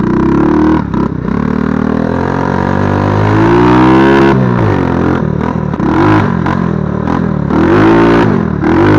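110 cc four-stroke quad engine pulling away in first gear, the revs climbing steadily to about four seconds in and then dropping sharply at a shift up. After that the revs rise and fall several times as the throttle is worked along the trail.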